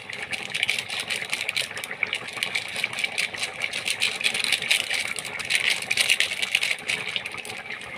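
Curry boiling hard in a large kadai, a steady dense crackle of rapidly bursting bubbles.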